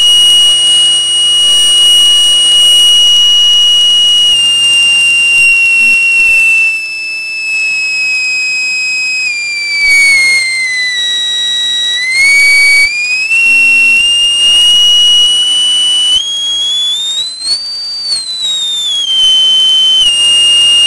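Piezo element driven by a homemade 555-timer siren circuit, sounding one very loud, piercing, high-pitched tone. It holds steady, then slowly falls in pitch, steps back up, rises higher and settles back as the circuit's potentiometer is turned.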